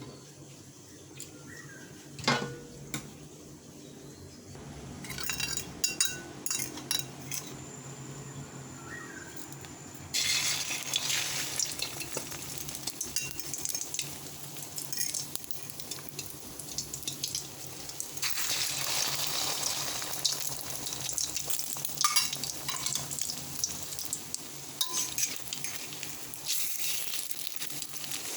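Utensil clinks and knocks against a pan, then about a third of the way in a sudden start of food sizzling as it fries in hot oil, growing louder for a few seconds and carrying on with scattered clinks.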